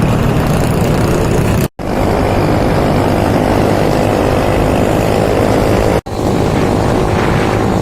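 A motor engine running steadily under a dense rushing noise, broken twice by abrupt cuts about two and six seconds in.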